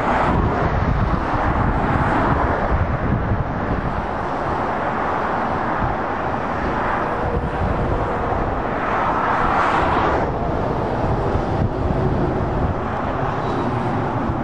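Motorway traffic passing: lorries and cars going by with a steady rumble of tyres and engines, swelling several times as vehicles pass close.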